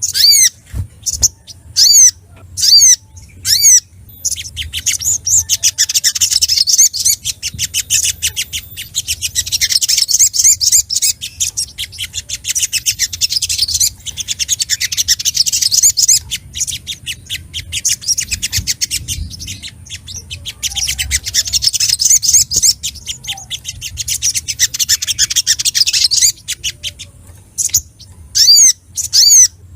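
Little spiderhunter (sogok ontong) calling excitedly. It opens with sharp, high, down-slurred chips about twice a second. About four seconds in these run into long bouts of very fast chattering, broken by short pauses, and near the end it returns to separate chips.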